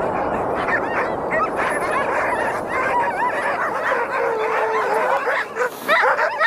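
A pack of tethered sled huskies yelping and whining in chorus, with many short rising and falling cries and one longer drawn-out howl about four seconds in. Near the end the cries turn louder and choppier. All of it sits over a steady rushing noise.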